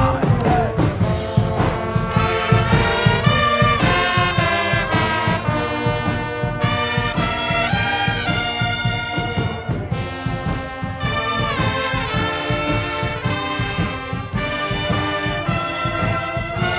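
Guggenmusik brass band playing loud, brassy carnival music: trombones, trumpets and sousaphones in full ensemble over a steady drum beat.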